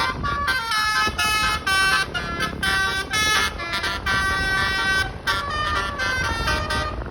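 A bus's multi-note telolet air horn playing a melody: a quick run of loud, changing horn notes with short breaks between phrases, over a low engine rumble.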